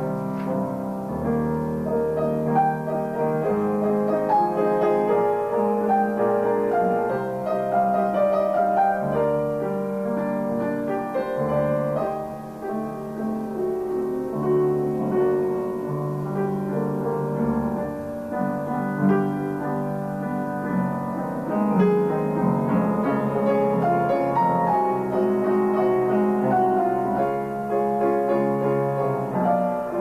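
Grand piano played solo: a classical piece, with chords and flowing notes over low bass notes.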